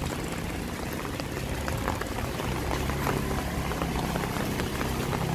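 Steady rain falling on wet pavement, with scattered drips. A small motor scooter engine runs quietly under it from about a second and a half in.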